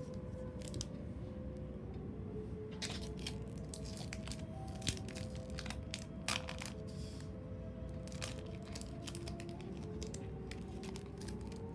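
Soft background music under close paper handling: paper and sticker sheets crinkling and tearing in short crackles, with two sharper clicks about five and six seconds in.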